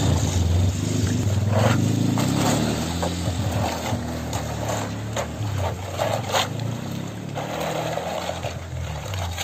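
An engine running steadily with a low drone, a little louder in the first few seconds, with a few light clicks over it.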